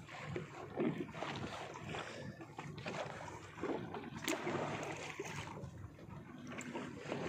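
Small fishing boat at sea: wind buffeting the microphone and water sloshing against the hull, with an occasional knock, the clearest about four seconds in.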